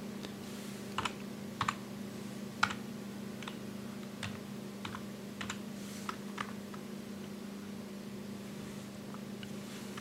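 Computer keyboard keystrokes: about a dozen single taps at irregular intervals, typing in a number, over a steady low hum.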